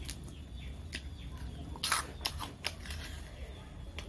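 Close-miked eating sounds of a person handling and eating instant noodles with a plastic fork: soft mouth noises with a few sharp clicks or smacks about halfway through, over a low steady hum.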